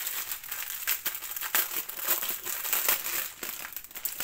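Clear plastic bag of diamond-painting drill packets crinkling as hands handle and open it, an irregular run of crackles that is loudest in the middle.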